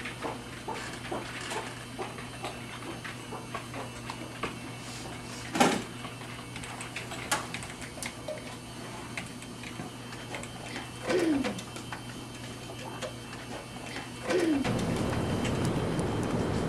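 Computer keyboard being typed on: irregular light key clicks over a steady low room hum, with a short falling squeak about eleven seconds in. Near the end the typing gives way to a louder, steady outdoor background hiss.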